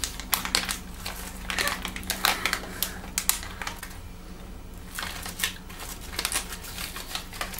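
Clear plastic snack bag of cardamom cashews crinkling as it is handled and opened: irregular crackles, with a brief lull about four seconds in.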